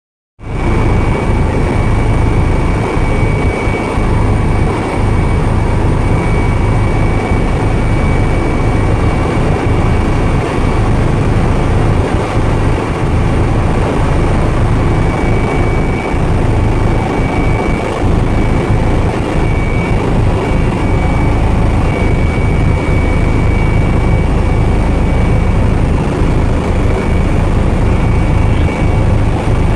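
Helicopter in flight heard from inside the cabin: a loud, steady rotor and engine drone with a thin, steady high whine on top.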